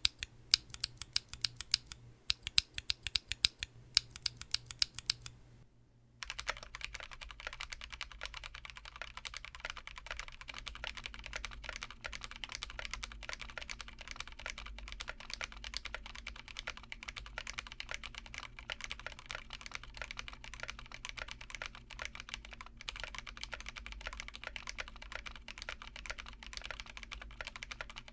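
Mechanical keyboard fitted with stock, unlubed Panda-type tactile switches being typed on: separate keystrokes in quick clusters for the first five seconds or so, then after a short pause, steady fast typing.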